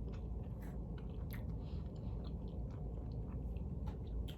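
Close-up chewing of pizza, with scattered short wet mouth clicks, over a steady low background hum.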